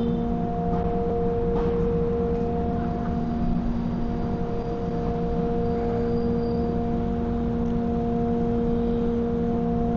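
A steady hum holding one low pitch without a break, over a low rumble of background noise.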